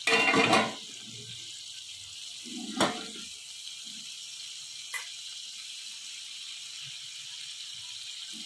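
Beef tikka skewers sizzling steadily in oil on a hot iron tawa. A loud noisy burst comes in the first second, a sharp knock about three seconds in, and a small click at five seconds.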